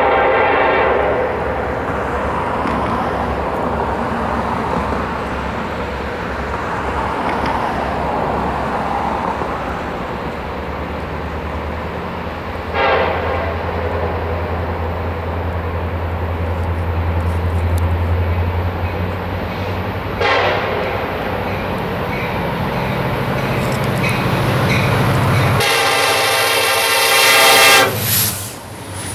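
CSX SD70ACe diesel-electric locomotive with its 16-cylinder EMD 710 two-stroke engine, approaching and passing close beneath. Its air horn sounds until about a second in, gives two short blips later, and sounds a loud blast near the end as the locomotive passes under. Between horn sounds, a steady low diesel rumble swells as the train nears.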